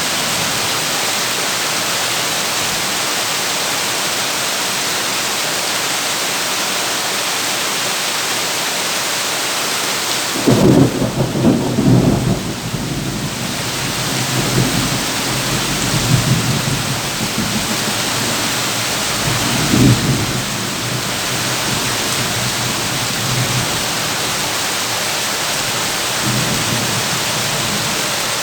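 Heavy rain falling on a tin roof as a steady hiss. About ten seconds in, thunder breaks in with a sudden low rumble that rolls on for several seconds, swelling again twice before it fades.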